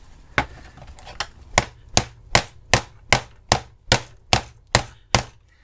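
Steel combination pliers bashing the hard plastic case of a Now TV streaming box: a steady run of about a dozen sharp knocks, roughly two and a half a second, struck to force the clipped-shut case apart.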